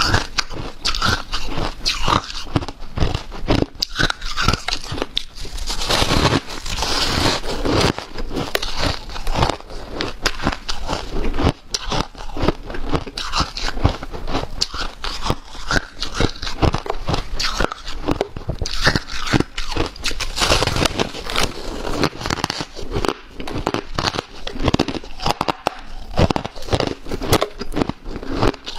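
Close-miked biting and chewing of snow-like powdery ice with embedded hard ice: continuous irregular crunching with crackly, squeaky bites.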